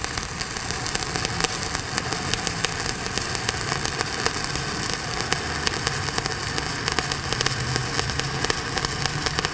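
Stick (SMAW) welding arc burning steadily while laying a cap bead on steel plate: a continuous crackling sizzle with dense, rapid pops.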